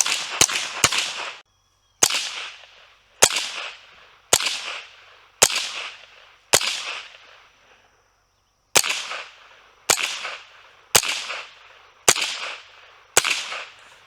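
A .22 rimfire fired with high-velocity rounds through a Hush Point .22 silencer: a quick pair of sharp cracks, then ten shots about a second apart with a longer pause in the middle. The muzzle blast is eliminated and the supersonic crack of the bullet remains.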